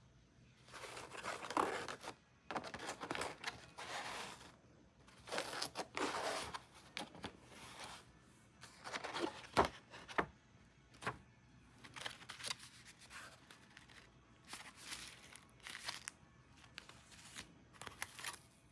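Packaging being torn open and crumpled by hand, in irregular bursts of tearing and crinkling with short pauses between them.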